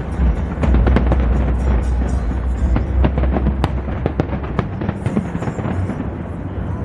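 New Year's fireworks display bursting, with rapid sharp cracks over a continuous low booming rumble, and music playing along with it. The booming eases off toward the end.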